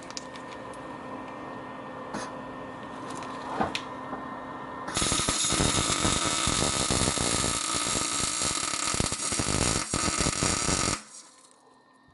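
Electric arc welding onto a galvanized steel nut: a steady crackling sizzle that starts about five seconds in and cuts off sharply near the end. Before it there is a faint hum with a few light clicks.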